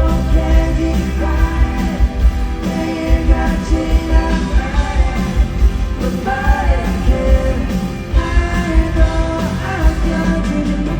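Live rock band playing a song with a sung lead vocal over drums, bass and guitars, with a steady drum beat.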